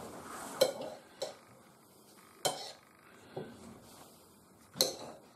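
Kitchen knife chopping shaggy ink cap mushrooms on a ceramic plate: about five sharp clinks of the blade striking the plate, at uneven intervals.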